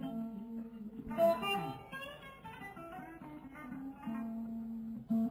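A guitar picking loose single notes, with a strummed chord about a second in and a note held steady near the end.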